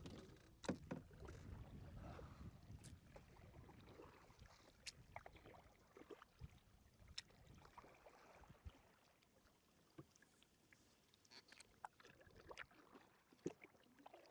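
Near silence on a fishing kayak: a faint low rumble for the first few seconds, then scattered faint clicks and small knocks, like gear shifting against the hull.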